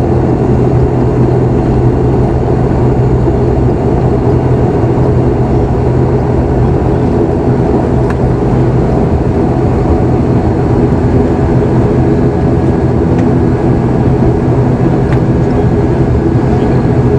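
ATR 72-500 turboprop engines and propellers heard from inside the cabin: a loud, steady drone with a constant low hum, as the airliner rolls on the ground after landing.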